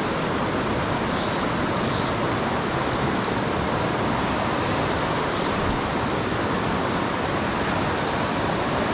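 Fast, high floodwater of a mountain trout creek rushing over rocks, a loud steady rush with no letup.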